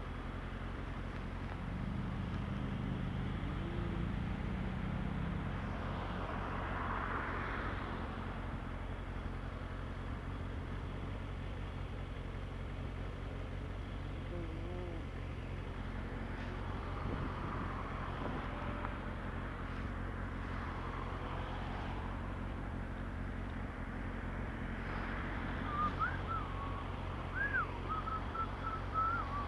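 Motorcycle engine idling steadily while stopped, with cars passing by. Near the end a run of short, high warbling whistled notes comes in.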